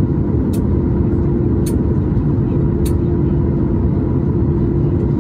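Cabin noise of a Boeing 737 MAX with its CFM LEAP-1B jet engines running: a steady low rumble with a held hum. Faint short high clicks come about once a second.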